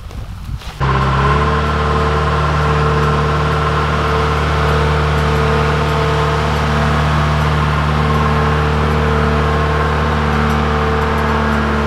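John Deere 310G backhoe loader's four-cylinder diesel engine running steadily as the machine drives, with a steady whine above the engine note. It starts suddenly about a second in.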